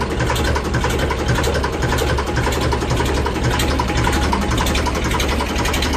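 Tractor engine idling steadily, warming up shortly after being started.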